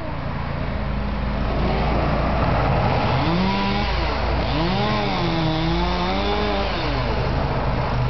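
Chainsaw running steadily, with its engine revved up and down several times from about three seconds in to about seven seconds in.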